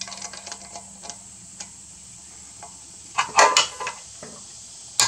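Ratcheting torque wrench working the flex plate bolts of a Chevy 350 V8: light ratchet clicks, then a louder metallic clank with a brief ring about three seconds in, and another sharp clank near the end.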